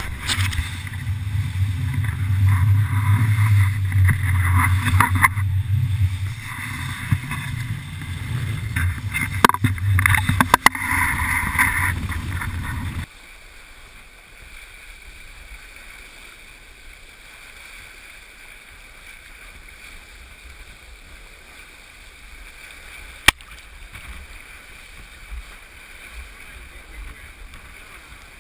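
Wind buffeting the microphone in a low, gusty rumble over rushing water as a sailboat sails hard in strong wind, with a few sharp knocks. About 13 seconds in it cuts to a quieter, even rush of water streaming past the hull close to the waterline.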